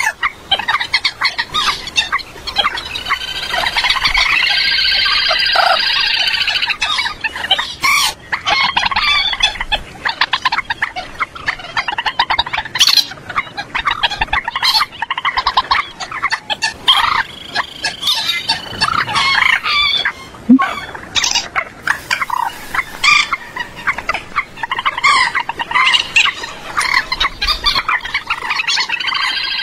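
Common moorhen calls looped as a bird-trapping lure: a continuous string of loud, harsh clucking and cackling calls with sharp clicks between them, rising into fuller bouts of calling several times.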